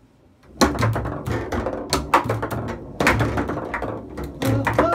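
Foosball game in play: irregular sharp clacks and knocks of the ball against the plastic players and table walls, with thuds of the rods, starting about half a second in after a brief hush.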